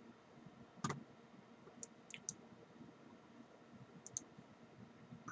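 Computer mouse button clicks, a handful of short sharp ones, some in quick pairs, over a faint hiss, with a duller, louder knock about a second in.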